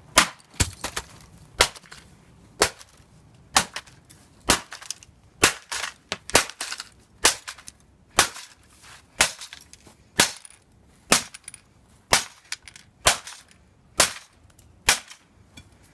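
Repeated sharp blows smashing an IBM ThinkPad laptop, about one strike a second in a steady rhythm, each a hard crack with a short ring after it.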